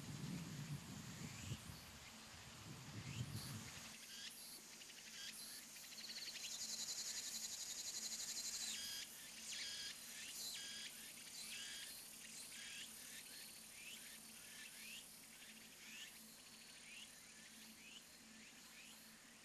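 Faint woodland ambience: a small creature repeats a short rising chirp about once a second, and a steady high insect buzz joins for about three seconds in the middle. A low rumble fills the first four seconds.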